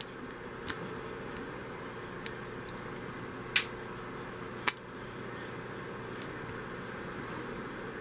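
Lock pick raking in a pin-tumbler padlock's keyway: light metal scraping with a handful of short, sharp clicks, one much louder click just under five seconds in.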